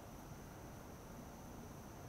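Faint outdoor night ambience: a steady low rumble with a thin, steady high-pitched insect drone over it.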